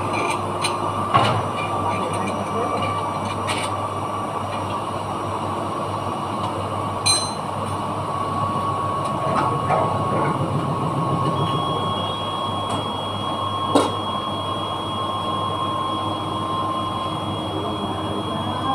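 Steady hum and rush of running machinery, with a few sharp metal clinks and knocks from hand work on a metal part of a dry-cleaning machine.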